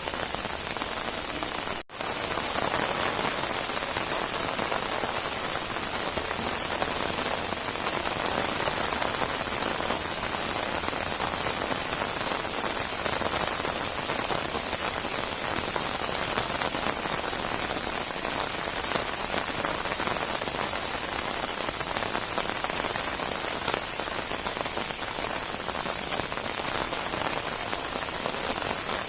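Steady rain falling on a surface, an even hiss with no thunder; the sound cuts out for an instant about two seconds in.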